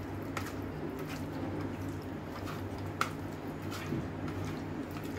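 Soft wet squishing of raw chicken pieces being mixed by hand with sauces and spices in a steel plate, with a few sharp clicks against the plate, over a low steady hum.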